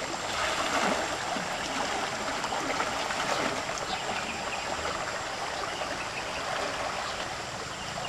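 Swift, muddy river current rushing in a steady wash, with water sloshing around a person wading waist-deep through it.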